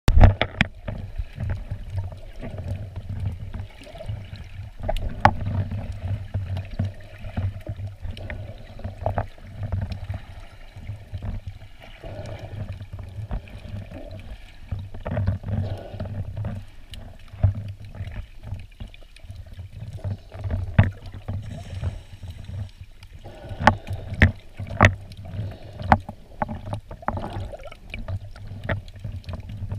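Underwater sound picked up by a submerged GoPro 10: a muffled, uneven low rumble and wash of moving water. Scattered sharp clicks and taps run through it.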